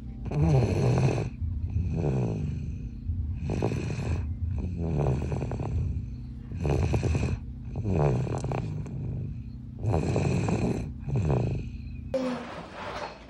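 Snoring in slow, regular cycles, about four in all, each a louder snore followed by a softer one, its pitch falling through each. A faint steady hum runs beneath, and the snoring stops about twelve seconds in.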